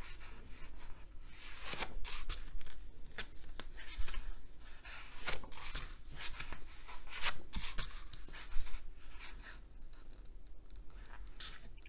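Pages of a large art book being turned by hand: a run of irregular paper rustles and swishes as the sheets are lifted, flipped and smoothed flat.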